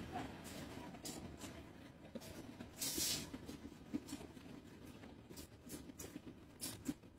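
Coiled glass bangle strands clinking against each other as a sling load of them is lifted and carried. The clinks are scattered and light, and the loudest comes about three seconds in.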